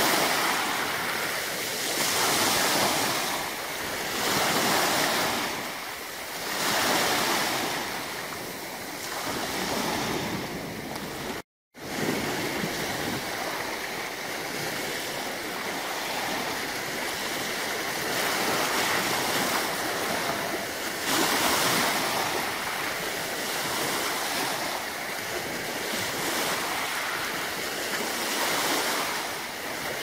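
Small sea waves breaking and washing over a pebble beach, the surf swelling and fading about every two seconds. The sound cuts out for a moment near the middle.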